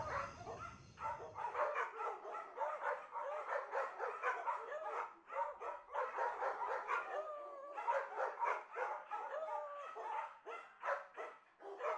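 Small dogs barking and yipping in quick succession, several short high barks a second, with a couple of longer wavering whines in the middle.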